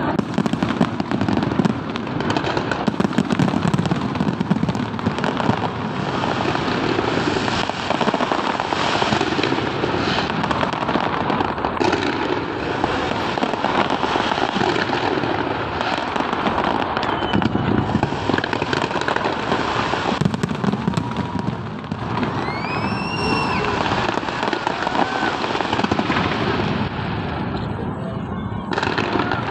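Fireworks display: a dense, continuous crackling and popping of bursting shells, with a short rising whistle about three-quarters of the way through.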